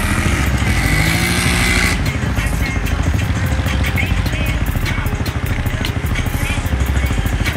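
ATV engines running; one revs up, its pitch rising over the first two seconds, then the engines run on steadily.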